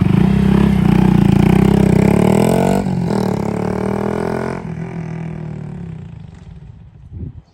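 Honda Grom's single-cylinder 125 cc engine revving hard as the bike pulls away from idle, with a brief break about three seconds in as it shifts up, then the engine note fading into the distance as it rides off. No chain noise is heard after the new chain and adjusters went on.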